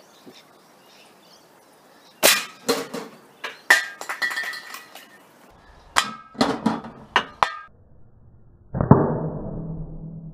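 Several runs of sharp metallic clicks and clinks, then one sharp crack about nine seconds in with a ring that fades slowly: a .177 pellet from a Gecado Model 35 spring-piston air rifle striking an empty butane gas cylinder and knocking it over. The pellet dents the can but does not penetrate it.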